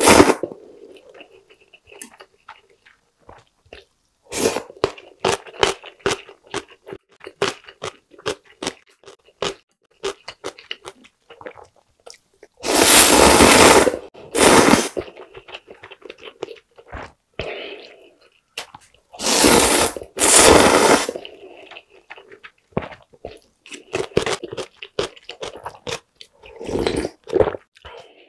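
Close-up eating of instant ramyeon: wet, clicking chewing of noodles, broken by four loud slurps of noodles in broth, two in quick succession about halfway through and two more a few seconds later.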